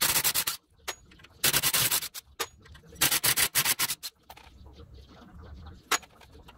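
Cordless impact driver hammering in three short bursts, about a second and a half apart, as it loosens the bolts holding the front wheel hub through the holes in the hub flange. A single sharp click follows near the end.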